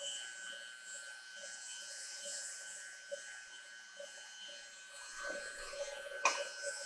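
Stand mixer motor running with a steady whine as its dough hook kneads bread dough. From about five seconds in, a few light knocks and handling noises as a plastic measuring cup is picked up.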